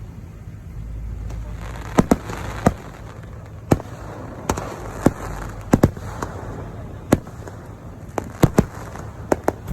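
Fireworks display: aerial shells bursting in an irregular series of sharp bangs, some in quick pairs, over a steady low rumble and crackle.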